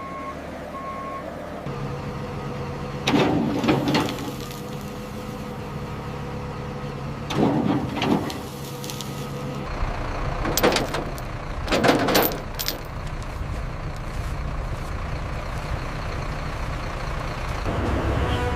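A heavy vehicle's engine running steadily. A reversing beeper sounds in short beeps at the very start, and four loud short bursts of noise come through the middle.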